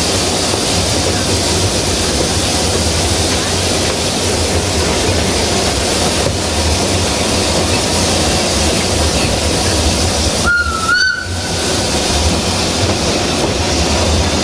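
Narrow-gauge steam train running, heard from aboard: a steady rumble with hiss. About ten seconds in, the steam locomotive 762.209 gives a short, single whistle blast.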